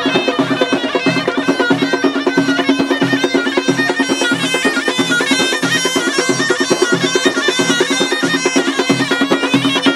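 Ghaita (zurna-type shawm) playing a loud, reedy, ornamented melody over a steady held low note. Large frame drums beat a driving rhythm, about two strokes a second.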